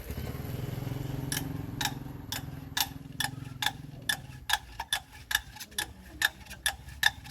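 Repeated sharp metal-on-metal taps, each with a short ring, starting about a second in at roughly two a second and quickening. A low hum sits under the first few seconds.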